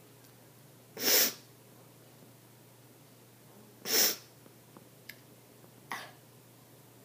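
Two short, sharp puffs of breath blown out, about three seconds apart, followed by a couple of faint clicks.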